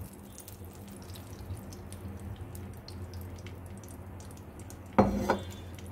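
Butter and oil heating in a kadai with a faint scattered crackle, over a steady low hum. A brief louder thump comes about five seconds in.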